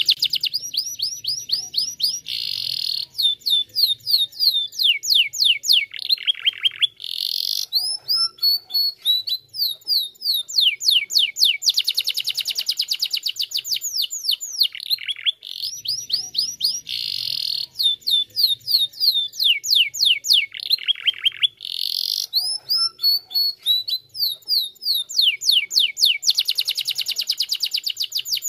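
Domestic canary singing a long, fast song of rapid high trills and rolled notes, broken by short pauses. The same song passage is heard twice over.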